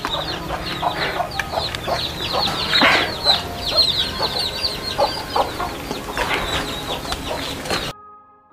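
Chickens clucking, with many short, high chirps running through it; the sound cuts off abruptly about eight seconds in.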